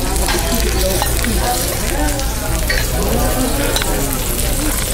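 A steak sizzling in butter on a very hot serving plate: a steady hiss, with faint voices murmuring behind it.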